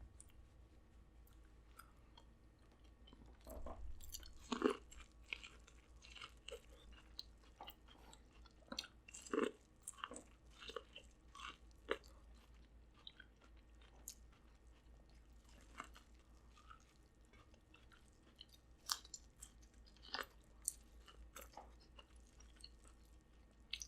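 Close-miked chewing of corn on the cob: irregular wet mouth clicks, smacks and crunches.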